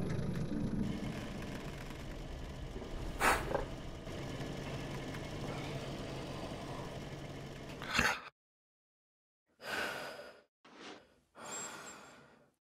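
A low rumble with a steady hum fades and then cuts off suddenly about eight seconds in. After a moment of silence a man breathes heavily, four short breaths.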